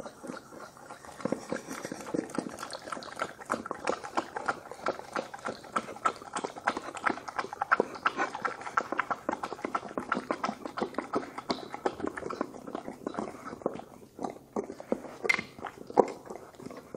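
Two dogs eating egg from bowls: a fast, continuous run of wet smacks, licks and clicks of jaws and tongues against the bowls.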